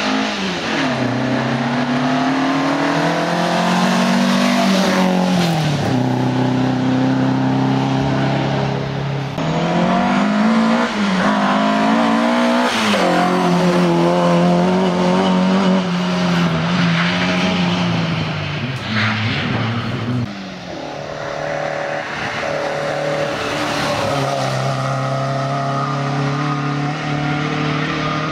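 Ford Escort Mk1 rally car's four-cylinder engine at full throttle. The engine note climbs through each gear and drops sharply at every shift or lift. After a break about twenty seconds in, a high, steadier engine note follows.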